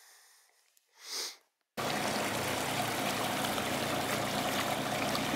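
A brief whoosh, then about two seconds in a loud, steady rushing noise like running water starts abruptly, with a low steady hum beneath it.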